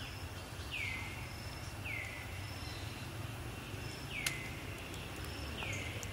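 A bird repeats a short call that slides downward in pitch and levels off, four times at intervals of about a second or more, over steady outdoor background noise. A single sharp click comes about four seconds in.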